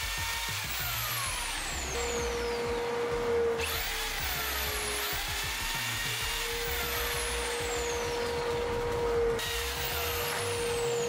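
Corded DeWalt jigsaw running with its trigger held, together with the dust collector that it has switched on through the workbench's tool-activated outlet: a steady machine noise with a constant hum.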